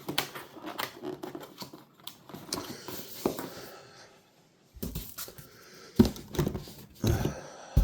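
Boxes and packets of car parts being handled: crinkling and rustling of packaging, with several knocks as parts are moved and set down.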